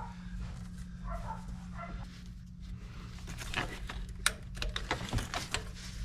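Light clicks, taps and rustling of hands moving plastic intake parts and wiring in a car's engine bay, clustered a little past halfway with one sharper click, over a steady low hum.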